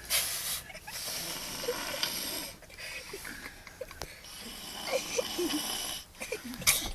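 A man snoring: a run of long, noisy breaths one after another, each about a second to a second and a half, with short pauses between.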